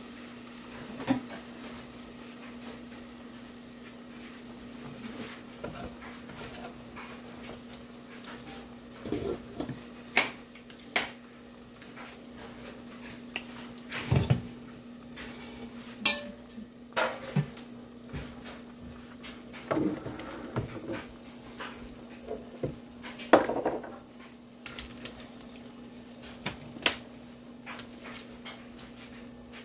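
Kielbasa sizzling faintly under the glass lid of an electric skillet, over a steady low hum, with scattered clinks and knocks of kitchen dishes and utensils about a dozen times.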